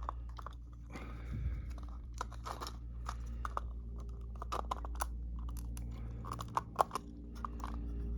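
Irregular small clicks and rustles of hands plugging in wire connectors and handling 3D-printed plastic parts, over a steady low hum.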